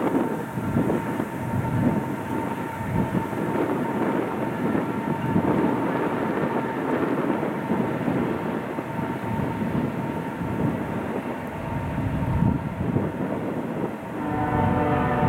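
Union Pacific double-stack intermodal freight train rolling past: a steady rumble and rattle of loaded well cars on the rails, with a faint steady high tone over it. Music comes in near the end.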